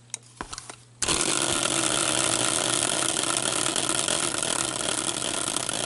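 Homemade caster-wheel prize spinner whirring as it spins fast, starting suddenly about a second in and running on steadily, easing off slightly.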